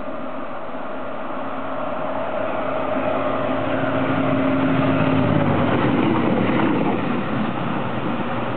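Two-car Y-tog diesel railcar set approaching, passing close by and running away on the track. Its engine and wheel noise swells to a peak about five seconds in. A steady hum drops in pitch as it passes, then the sound fades.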